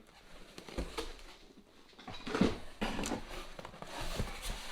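Rustling and light knocks of packaged tools being handled and lifted out of a cardboard shipping box, with a few soft thuds.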